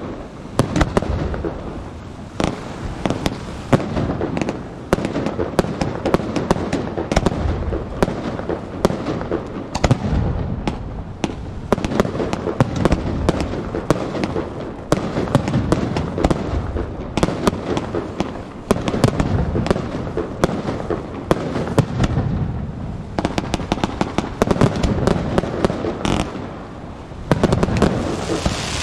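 Aerial fireworks display: shells launching and bursting in quick succession, with many sharp bangs over a continuous rumble. Near the end a steady hiss comes in.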